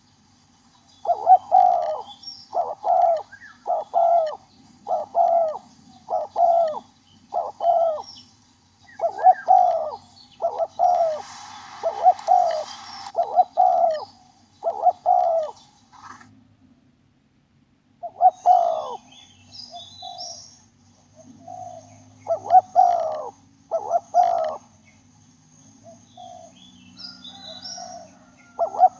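Spotted dove cooing: a long run of short, low coos, one or two a second, that breaks off for about two seconds past the middle and then starts again.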